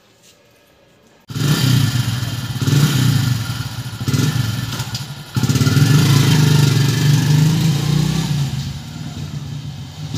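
Hero commuter motorcycle's single-cylinder engine running close by, coming in suddenly about a second in, then pulling away and growing fainter near the end.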